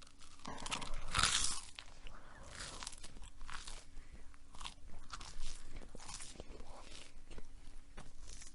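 A person chewing food: a run of irregular, closely miked mouth sounds and bites, loudest about a second in.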